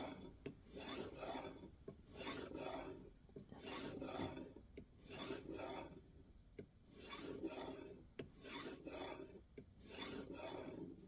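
A 2000-grit diamond sharpening plate on a guided knife sharpener being stroked along the edge of a clamped N690 steel knife blade: a faint, even series of short rasping swipes, about one a second.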